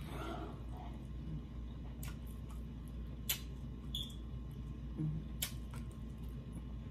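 Close-up eating sounds: a scattering of short, sharp clicks and smacks from chewing and from fingers picking at shellfish, over a steady low hum.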